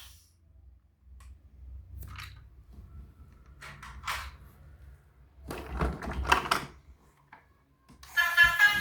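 Scattered short rustles and knocks of toys and their packaging being handled, loudest in a cluster about six seconds in. A tune of stacked tones starts in the last second.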